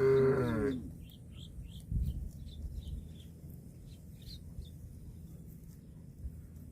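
A calf gives one short moo at the start, then small birds chirp faintly in the background, with a low thud about two seconds in.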